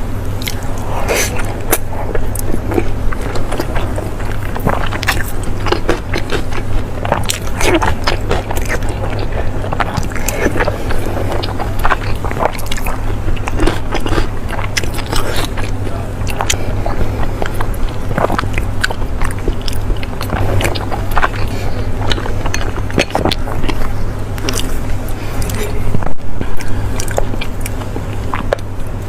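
Close-up chewing and biting of chicken and naan, with many short wet mouth clicks throughout, over a steady low hum.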